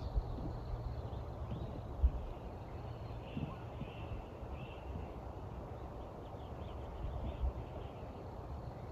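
Steady low rumbling noise with a couple of dull thumps, and faint small-bird chirps between about three and five seconds in.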